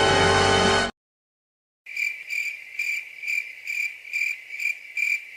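Music that cuts off about a second in, then after a brief silence a cricket chirping at an even pace, about two chirps a second: the comic 'awkward silence' crickets effect.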